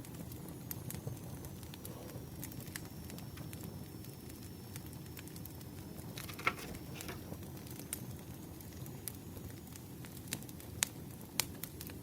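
Wood fire crackling, with irregular sharp pops over a steady low rumble. A brief louder scratchy sound comes about six and a half seconds in.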